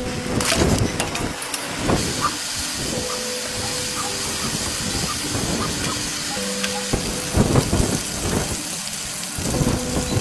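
Chicken deep-frying in hot oil: a steady sizzling hiss with scattered crackles and pops. Faint held musical tones come and go over it.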